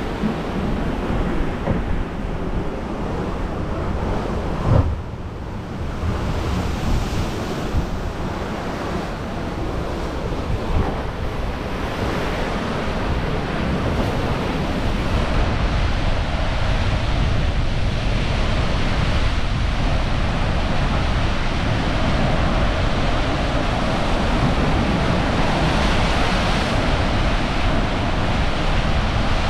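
Sea surf crashing against limestone cliffs and washing off the rock shelves in a steady roar of water, with wind buffeting the microphone. A single sharp thump comes about five seconds in.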